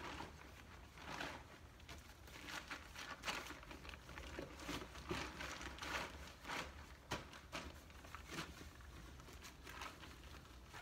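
Berghaus Air4 tent fabric and its carry bag rustling and crinkling as the deflated tent is pushed and stuffed down into the bag, in quick irregular rustles.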